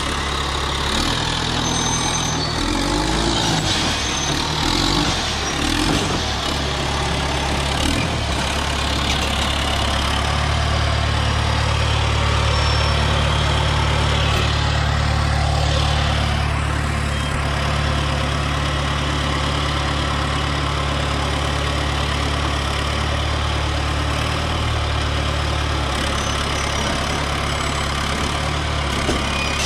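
John Deere 450G crawler dozer's diesel engine running as the machine works. Its note shifts up and down for the first ten seconds or so, then holds steady at higher revs for most of the rest and eases off slightly near the end.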